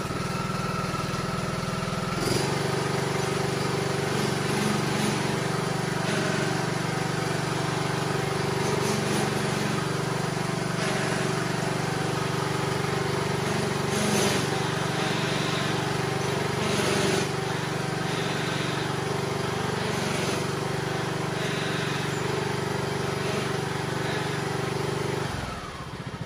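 John Deere LA125 lawn tractor engine running steadily, its note shifting slightly about two seconds in, then shutting off about a second before the end. It is run with the hydrostatic transmission freshly refilled with oil, to work the air out of the transmission's pumps.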